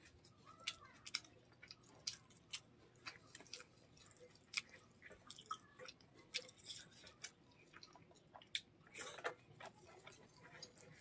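Faint close-miked chewing of a mouthful of rice and curry, with irregular wet mouth clicks, one or two a second.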